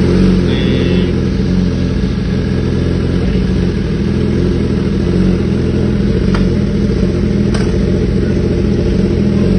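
2017 BMW S1000RR's inline-four engine held at steady high revs on launch control, a loud, even drone. Two sharp cracks come about six and a half and seven and a half seconds in.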